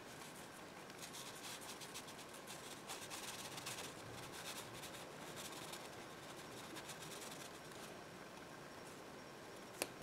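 Water brush bristles rubbing and scratching on sketchbook paper in short, quick strokes. A single sharp click comes near the end.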